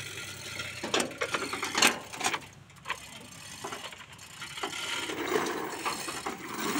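Ratchet clicking and irregular metal clanks from a rigging truss tower being raised with its hoist.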